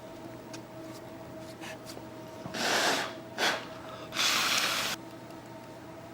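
Three short rushes of air, the middle one brief, as breath is blown across the iPad's screen glass to clear dust.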